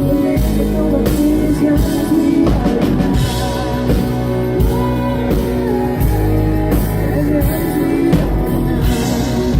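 A live band playing a country-rock song, with drums and electric guitar and a voice singing over them.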